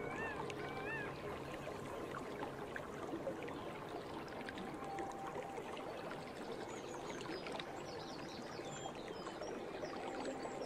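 Water flowing steadily, a stream or small cascade, with faint short high chirps in the second half.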